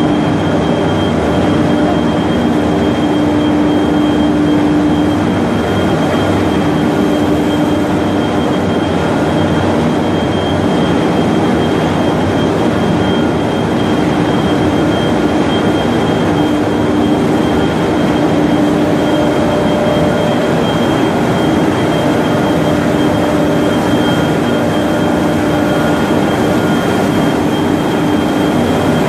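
3200 mm copy paper machine running in production: a loud, steady mechanical din of rolls, drives and motors, with a constant high whine and a lower hum that fades in and out.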